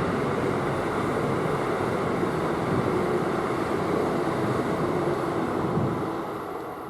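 A train rumbling through the station, a steady noisy rumble that fades away near the end.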